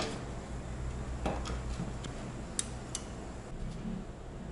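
A few sharp, separate clicks and light knocks of a graphics card being unlatched, pulled from its motherboard slot and set down on the table.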